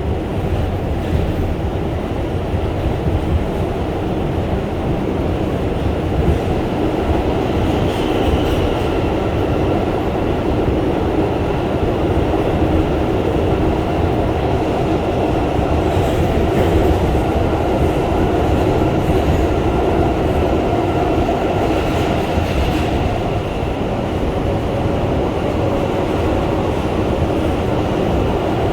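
R142 subway train heard from inside the car while running between stations: a steady loud rumble of wheels on rail with a faint steady whine, and a few clicks over rail joints.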